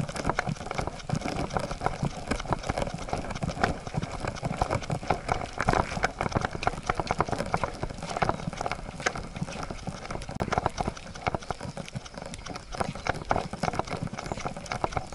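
A walking Siberian husky's paws and claws tapping in quick, irregular steps, picked up by a camera strapped to its back: first on a dirt trail, then partway through on a wooden boardwalk.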